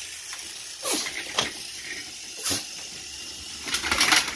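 Hard plastic clacks from a Thomas Trackmaster toy train playset being handled: single knocks about a second in, a moment later and past halfway, then a quick rattle of clicks near the end as the yellow crane piece on top of the tower is moved.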